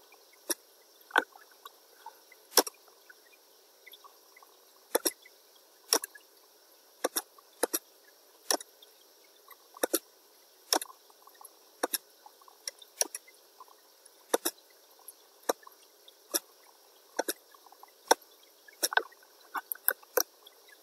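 Computer mouse clicking: single clicks and quick double-clicks at irregular intervals, roughly one or two a second, over a faint steady hiss.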